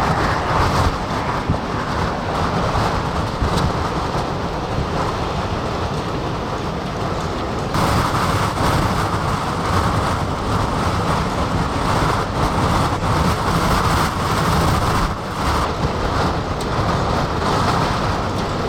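Extreme gusting wind blowing hard across the microphone with a heavy, rough rumble, and a flag whipping in it. The wind noise changes abruptly about eight seconds in.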